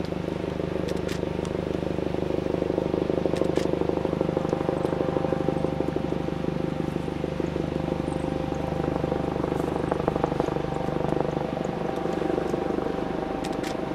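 Helicopter flying overhead: a steady drone with a fast rotor beat, with a few sharp clicks scattered through.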